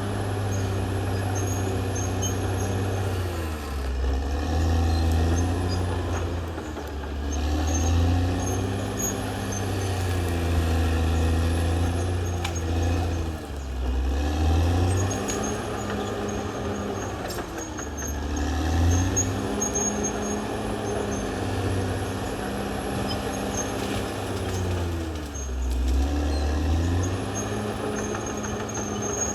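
Caterpillar D6R XL bulldozer's diesel engine running hard, its pitch dipping and recovering every few seconds as it works.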